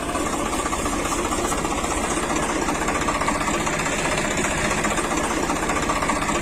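Tractor engine idling steadily with a fast, even knocking clatter.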